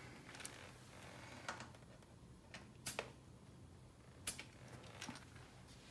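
A few faint, sharp clicks about a second apart as a digital tire gauge is handled and pressed onto a tire's valve stem.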